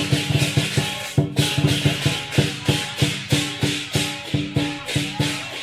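Lion dance percussion ensemble: a drum beating an even rhythm of about three strokes a second with clashing cymbals and a ringing gong, with a brief break about a second in.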